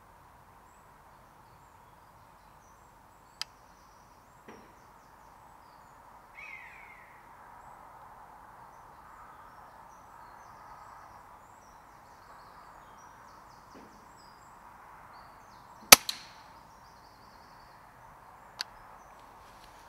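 A single shot from a Daystate Huntsman Safari PCP air rifle about three-quarters of the way in: a sharp crack, followed a moment later by a smaller smack as the pellet strikes. Before it there is a faint outdoor background with a few light clicks and a short falling bird call.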